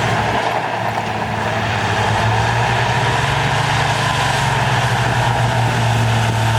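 Heavy earthmoving machine's diesel engine running steadily, its low drone growing stronger about two seconds in.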